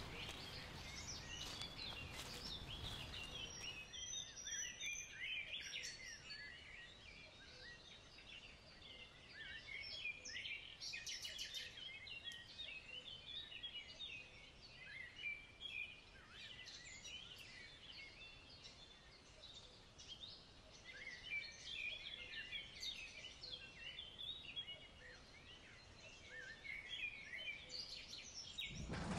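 Small songbirds chirping and twittering faintly, in spells of quick, high notes with quieter stretches between.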